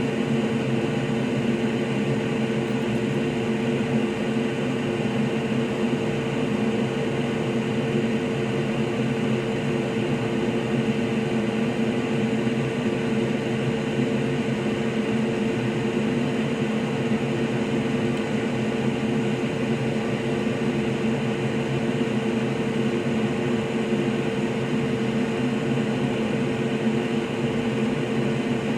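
A steady droning hum with fixed pitches and no changes.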